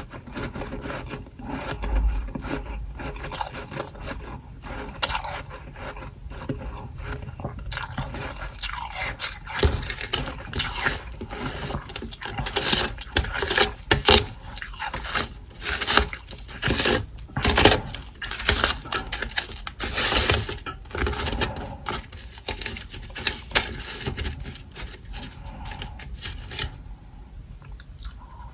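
Soft freezer frost (humidifier frost) scraped and crunched close to the microphone: an irregular run of crisp scrapes and crunches, busiest through the middle and easing off near the end.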